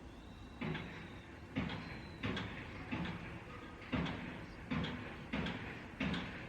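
A series of eight sharp knocks or thuds, about one every three-quarters of a second, each dying away quickly.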